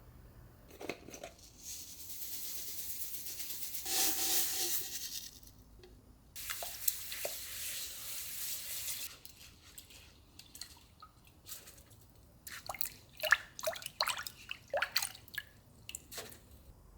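Water running in two spells of a few seconds each, the first rising in pitch as if filling a vessel, then a quick series of light clicks and knocks.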